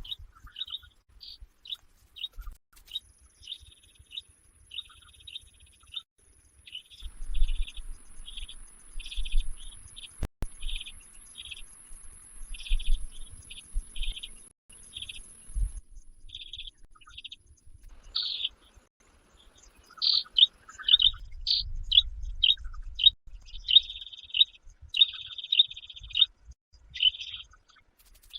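A bird chirping in short notes repeated again and again, some in quick trains, with a thin high steady tone for the first half and stretches of low rumble.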